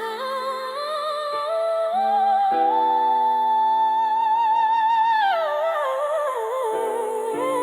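R&B ballad music: a wordless hummed vocal line with vibrato climbs to a long held high note and then falls away, over sustained accompanying chords that change a few times.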